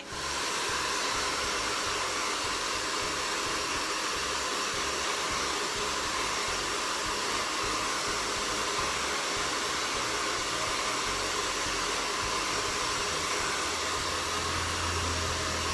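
Handheld hair dryer switching on and running at a steady speed, blow-drying rinsed hair during a rebonding treatment.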